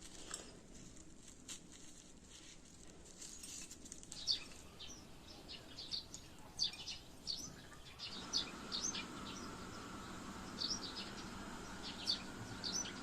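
Small bird chirping: short, high chirps in irregular runs, over a steady low background hum that grows louder about eight seconds in.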